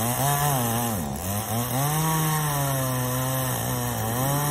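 Two-stroke chainsaw running under cutting load on a tree limb, its engine pitch sagging as the chain bites into the wood and climbing back again, with dips at about a second in and near the end.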